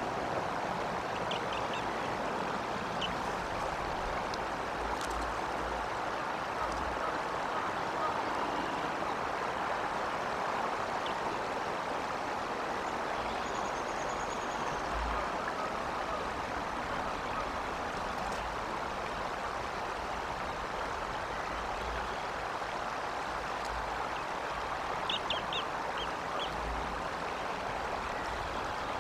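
Steady rushing outdoor background noise on a nest-cam microphone, with occasional low bumps. A few brief high chirps come near the start and again in a short cluster about 25 seconds in.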